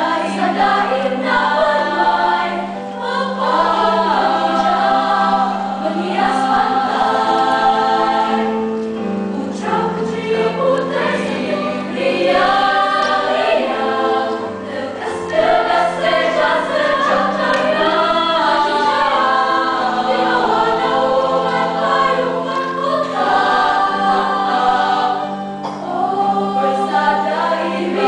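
Choir of female voices singing in several parts, with a low note held underneath through long stretches while the upper voices move above it.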